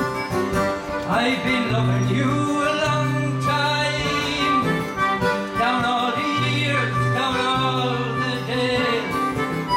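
Acoustic guitar and concertina playing a folk song, with a man singing over them from about a second in.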